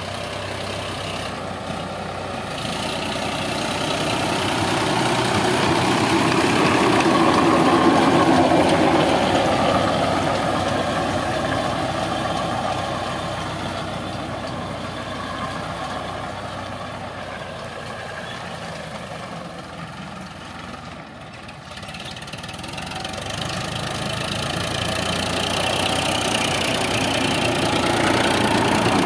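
Sonalika DI 745 tractor's diesel engine running under load while it drives a rotavator tilling grassy soil. The sound swells about a quarter of the way in, fades to its quietest a little past two-thirds through, and grows loud again near the end.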